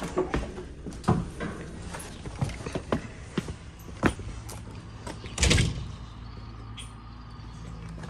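Footsteps and handling knocks as someone walks while carrying the camera, with a short loud rushing burst about five and a half seconds in.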